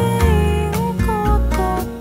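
Recorded jazz-pop song: a sung melody gliding over a steady bass line and plucked accompaniment.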